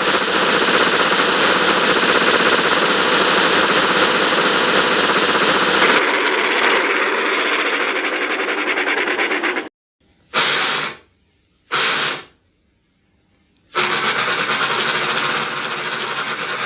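Cartoon steam-locomotive chugging of Casey Jr., the circus engine, in a run of back-to-back clips: fast, steady chugging that cuts out at about ten seconds, two short bursts, then chugging again near the end.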